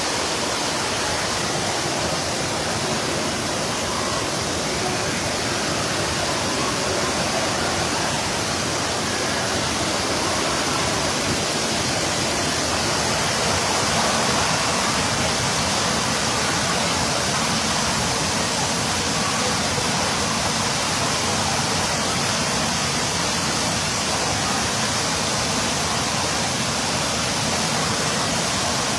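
Water pouring steadily from overhead waterfall shower rails and curved spout pipes, splashing into a spa pool: a constant, even rush of falling water.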